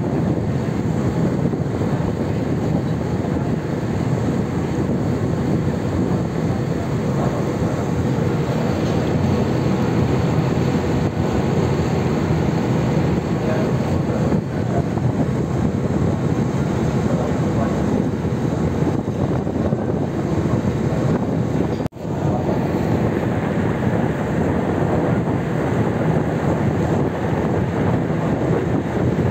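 Steady drone of a car ferry's engines under way, mixed with the churning of its propeller wake at the stern. The sound breaks off for an instant about two-thirds of the way through.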